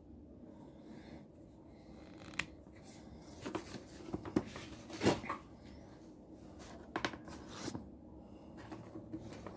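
Handling noises: small clicks, knocks and rustles as a mobile phone and its charging cable are set down on the bench and multimeter test leads are picked up. A string of them comes in the middle, the loudest about halfway through, and two more follow later.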